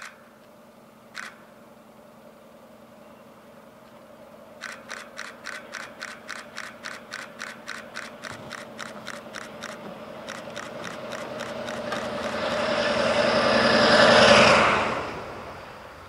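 A DE15 diesel-hydraulic snowplow locomotive approaches through deep snow. Its engine hum and the rush of ploughed snow swell to a peak about fourteen seconds in, then fall away fast as it passes. A rapid ticking, about three a second, runs from about five to ten seconds in, and two sharp clicks come near the start.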